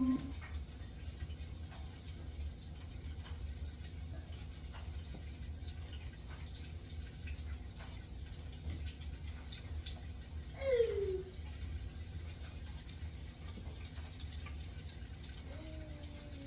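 Chicken wings deep-frying in hot oil, a steady faint sizzle with scattered small crackles over a low hum. About ten and a half seconds in, a short falling cry cuts through.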